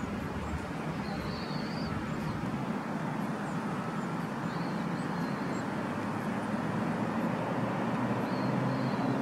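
Steady outdoor city background noise, an even rush that grows slightly louder, with a few short high chirps about a second in, around five seconds in and near the end.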